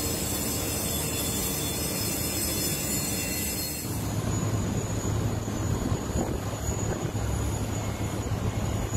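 Steady jet noise from an Airbus A380 on the ground: a constant rush with a thin high whine. About four seconds in it changes to a rougher rush with a low hum underneath.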